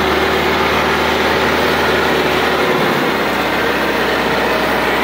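Massey Ferguson 385 tractor's four-cylinder diesel engine running steadily under heavy load while pulling an overloaded trolley of sugarcane.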